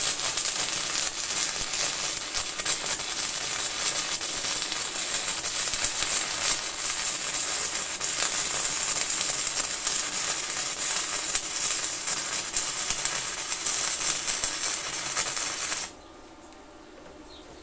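Stick (shielded metal arc) welding at 160 amps with two 2 mm rod electrodes tacked together side by side as one twin electrode: a steady, dense crackle from the arc, which holds until it is broken off sharply about 16 seconds in.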